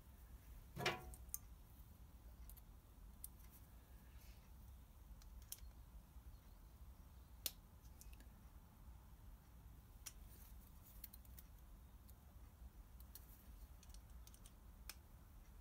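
Near silence broken by sparse small metallic clicks and ticks from hand tools and small metal parts being handled at the engine: a short ringing clink about a second in and a sharp tick about halfway through.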